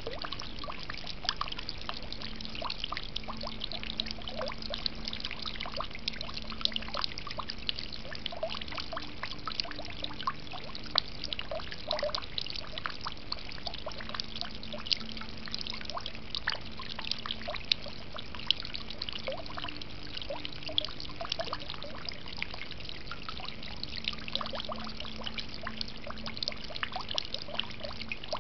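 Garden water fountain trickling and splashing steadily, with many small irregular splashes of falling water.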